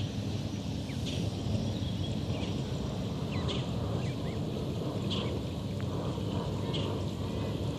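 Steady low rumble of wind on the microphone, with short high bird chirps repeating about every one and a half to two seconds.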